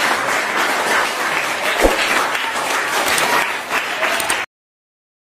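A classroom of schoolchildren applauding, with dense rapid clapping that cuts off abruptly near the end.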